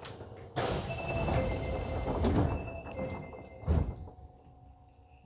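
An Osaka Metro 22 series train's sliding doors closing: an alternating two-note electronic chime sounds, then the doors shut with a thud about three and a half seconds in.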